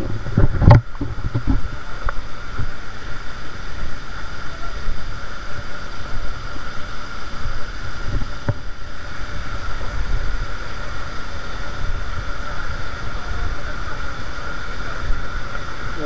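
Mountain stream rushing steadily, with low wind buffeting on the microphone. A few knocks come in the first second and another about eight and a half seconds in.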